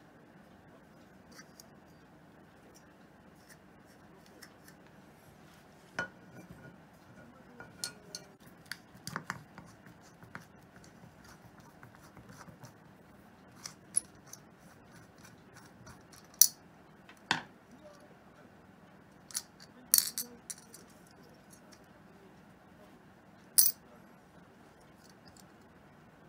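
Small metal parts of a chrome motorcycle side mirror clinking as it is assembled by hand: screws, washers and the mirror stem knocking against the metal housing and set down on the table. Scattered sharp clicks, the loudest few in the second half.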